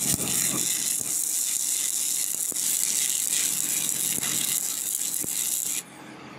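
Stick-welding arc crackling and sizzling steadily as a tack weld is laid on the cracked steel combine axle, then cutting off abruptly about a second before the end as the arc is broken.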